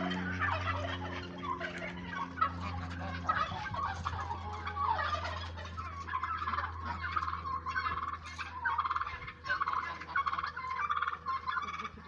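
A flock of free-ranging poultry calling, with turkeys gobbling in repeated rattling bursts over the chatter of other fowl. A steady low hum runs underneath.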